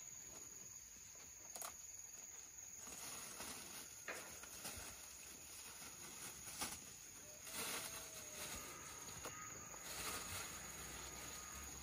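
Faint outdoor ambience: a steady high-pitched insect trill, with scattered light knocks and brief rustles.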